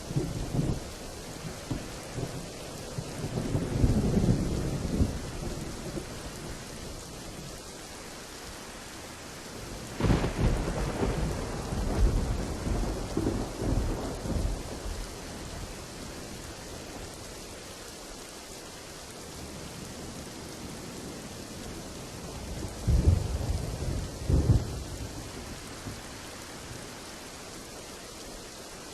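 Thunderstorm: steady rain hiss with three rolls of thunder, rumbling a few seconds in, a sharp-onset roll about ten seconds in that runs for several seconds, and a louder crack-and-rumble near the end.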